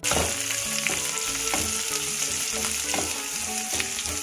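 Sliced onions and dry red chillies sizzling in hot oil in a nonstick kadai over high flame, with a wooden spatula scraping and stirring through them a few times.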